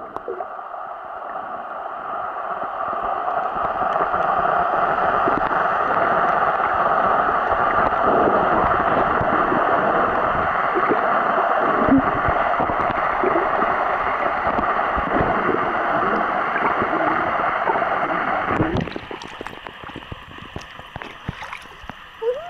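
Muffled underwater noise picked up by a camera in a waterproof housing: a steady hiss with small bubbling clicks. About nineteen seconds in it drops away suddenly as the camera breaks the surface, leaving quieter water lapping with small splashes.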